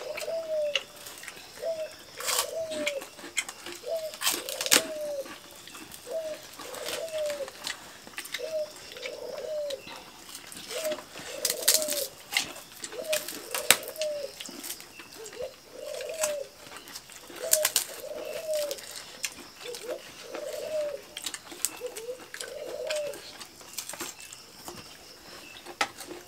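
A dove cooing over and over in short rise-and-fall notes, about one a second, stopping a few seconds before the end, with scattered small clicks and smacks of people eating with their hands.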